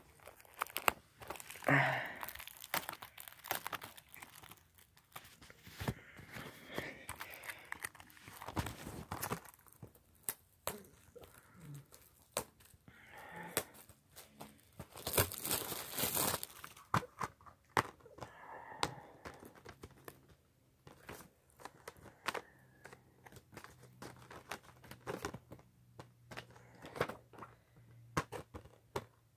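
A Blu-ray case and its packaging being handled: crinkling and tearing with scattered small clicks and knocks, the loudest rustling about halfway through.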